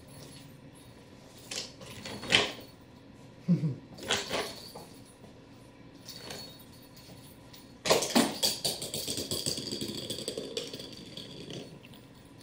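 Knocks and clatter on a hardwood floor during a cat's play. A few scattered sharp knocks come first, then about eight seconds in a sudden loud run of rapid clicks rattles on and fades over about three seconds.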